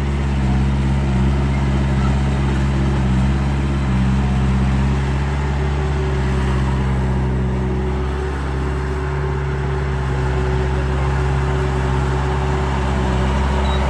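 Radio-controlled construction model running with a steady, low engine-like drone that holds one pitch, with a higher tone joining about halfway through.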